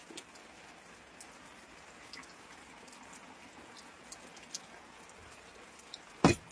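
Rain falling, a faint steady hiss with scattered drops tapping. About six seconds in comes a single loud knock.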